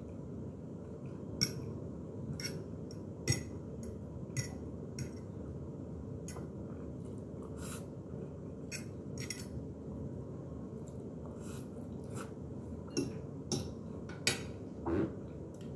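Metal fork clinking and scraping against a ceramic plate in short, irregular clicks, over a steady low background hum.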